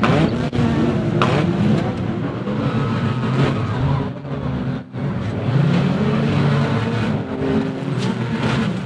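Several banger racing cars' engines revving hard on the track, their pitch rising and falling as they accelerate and pass, with sharp knocks now and then.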